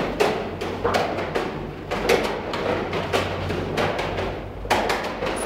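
Rapid, irregular slaps and smacks of hands and forearms meeting in a martial-arts blocking and striking drill, about two or three strikes a second with short gaps, over a low steady hum.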